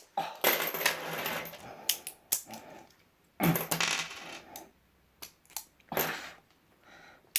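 Loose pennies clicking and jingling as they snap onto and slide across a strong 550 kg clamp magnet, in a few short clattering clusters with single clicks between.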